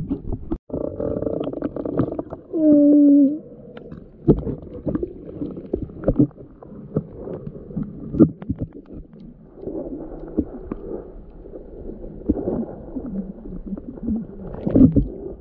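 Muffled underwater sound from a submerged camera: water moving and gurgling, with scattered clicks and knocks. A short, loud muffled tone sounds about two and a half seconds in.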